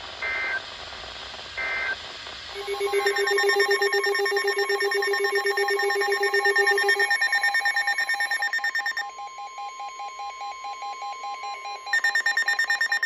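Two short Emergency Alert System data bursts, then a loud electronic alert tone of several pitches pulsing rapidly, the signal that a new warning is starting. The alert softens for a few seconds near the middle and comes back loud near the end.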